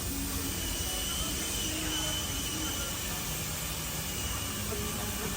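Steady hum of factory machinery, with a faint, slightly wavering high whine over it.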